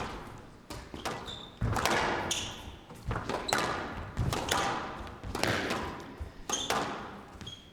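Squash ball rally in a hall: the ball is struck by rackets and cracks off the walls in quick, echoing hits about every half second to second, with short high squeaks of court shoes on the wooden floor.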